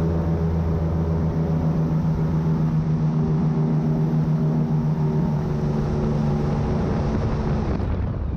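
Airboat's engine and air propeller running at a steady pitch, a loud low drone with a rushing noise over it. Near the end the drone drops away suddenly, leaving a noisier rush.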